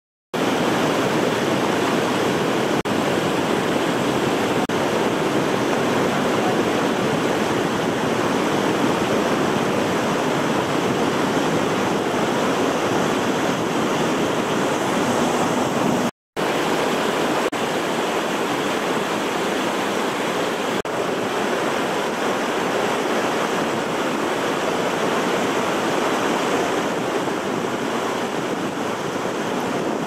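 Steady rush of heavy white water from the Låtefossen twin waterfall, which falls 165 metres. About 16 seconds in it drops out for a moment, then continues as the rapids below the falls rushing through a stone-arch bridge.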